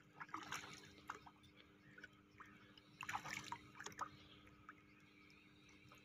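Faint, irregular splashing of a hooked common carp flapping in shallow water, strongest about half a second in and again around three seconds in.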